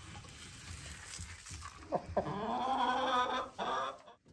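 Chickens in a hen house: low background clucking and shuffling, then about two seconds in one chicken gives a single drawn-out call lasting about a second and a half.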